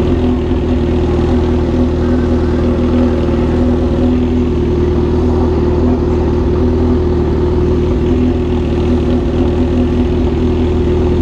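Honda CB 1000R inline-four motorcycle engine running steadily at an even engine speed, with no revving.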